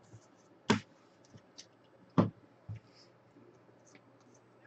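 Trading cards being handled and flicked through by hand: a few sharp clicks of card edges over quiet room tone, the two loudest about a second apart and then a second and a half apart.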